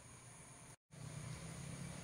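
Faint field ambience with a steady high insect drone. A brief total dropout comes about a second in, and after it a low rumble comes up.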